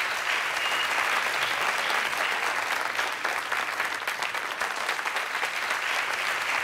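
Studio audience applauding: sustained, even clapping from many hands at a steady level.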